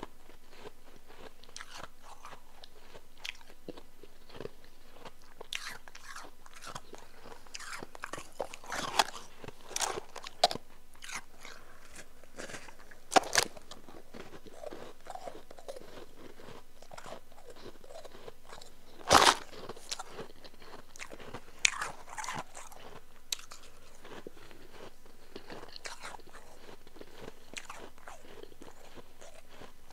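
A person biting and chewing powdery chunk ice close to the microphone. The crisp crunches come irregularly, with a cluster about a third of the way in and the loudest bite about two thirds through, over a faint steady hum.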